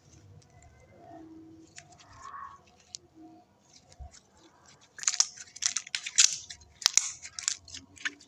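Slime being squished and kneaded by hand: a few faint sticky clicks, then from about five seconds in a dense run of loud crackling pops and clicks.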